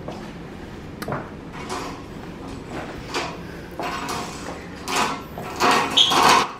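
Curtains being pulled aside along their rail: fabric swishing with a few light clicks, the loudest swishes near the end.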